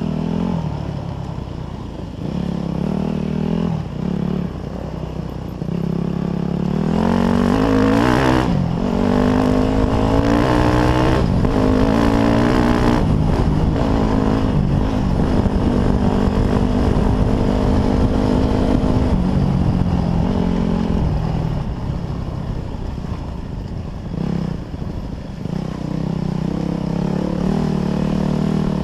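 Dirt bike engine under way, heard from the rider's helmet: the revs climb steeply about a quarter of the way in, hold high through the middle as the bike accelerates up the trail, then drop back to lower revs for the last third.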